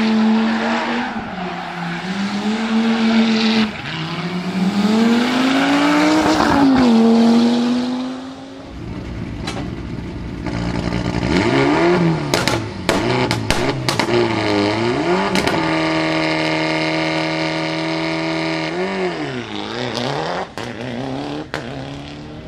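Rally engines: an Audi Quattro's turbocharged five-cylinder revving up and down as the car slides through a tight turn, then, from about eight and a half seconds in, a Mitsubishi Lancer Evolution's turbocharged four-cylinder revved in repeated blips, held at a steady high rev for a couple of seconds and blipped again, with sharp pops among the revs.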